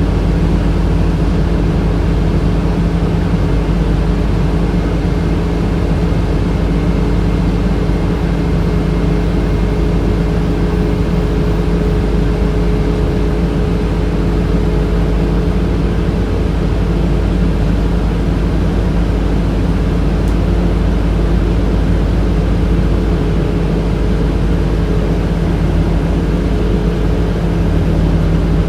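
HVAC system of a 2007 Orion VII transit bus running inside the moving bus: a steady hum with a few fixed tones over engine and road rumble.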